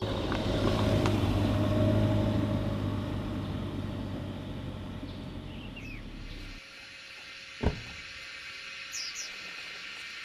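Steady low rumble that slowly fades and then cuts off abruptly about two-thirds of the way in, followed by a single sharp knock and a few short bird chirps.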